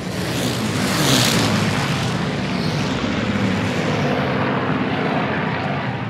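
Computer-generated World War II air battle: many propeller aircraft engines droning together in a dense wash of noise that swells loudest about a second in.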